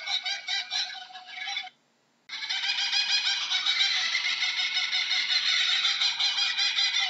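Laughing kookaburra calling in its rapid, cackling laugh of many quick notes, breaking off for about half a second near two seconds in, then resuming.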